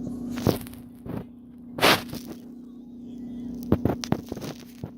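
Rustles and scattered clicks of headphones being handled and put on, loudest about two seconds in and a short cluster near four seconds, over a steady low hum.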